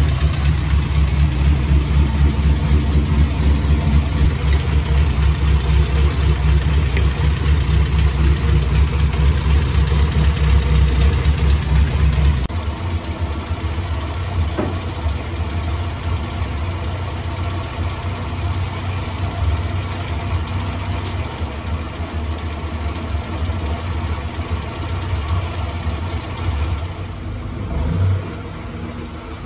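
Morris Minor 1000's BMC A-series four-cylinder engine idling steadily, heard close up at the open radiator filler neck while the freshly added coolant circulates. About twelve seconds in the sound cuts to the same engine idling more quietly, heard from further off, and near the end the car moves off.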